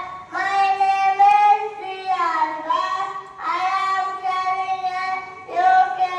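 A child singing slowly in long held notes, each lasting a second or two with short breaths between, the pitch sliding between notes.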